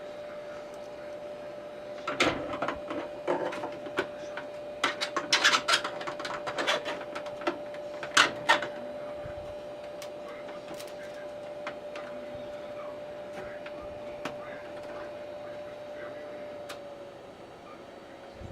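A paused ROBO R1+ 3D printer gives a steady hum while its filament is being changed by hand. Clicks and rubbing from the filament and printer parts come in a cluster from about two to nine seconds in, and then a few single ticks. The hum drops slightly near the end.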